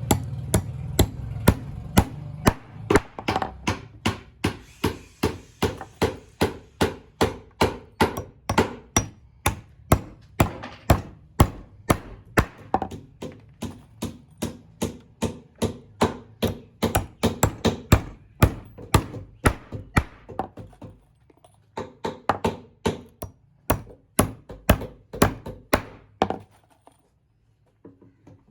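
Hammering on wood: a long, even run of sharp knocks at about two to three blows a second, with a brief pause near the end.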